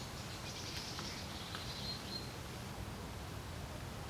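Wind over a lake, a steady low rumble, with a small bird singing a high, thin phrase that ends in a short held note about two seconds in.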